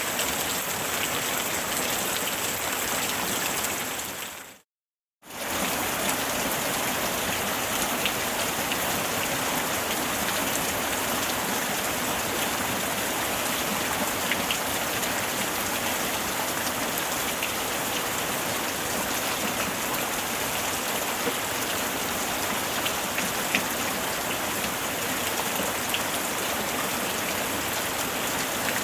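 Steady rainfall, an even hiss with scattered individual drops ticking. About four seconds in it fades out to a brief silence, then cuts straight back in, as at a splice in the recording.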